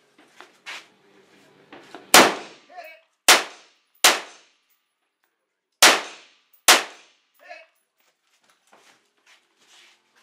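Five rifle shots from a scoped semi-automatic rifle, fired at uneven intervals in about four and a half seconds. A faint ring follows two of the shots: bullets striking steel targets downrange.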